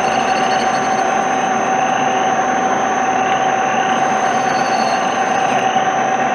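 Metal lathe running under power feed, a boring tool cutting out the bore of a pulley: a steady machine hum with one constant tone and a faint rising squeak about once a second.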